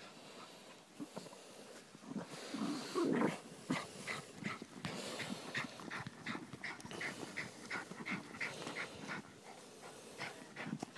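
Dog digging at a burrow with its head in the hole, breathing hard and sniffing. A louder sound comes about three seconds in, then a run of quick short huffs, about two or three a second.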